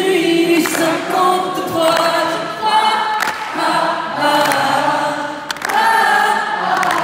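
A large arena crowd singing a melody together, unaccompanied, like a huge choir, in drawn-out phrases of about a second each.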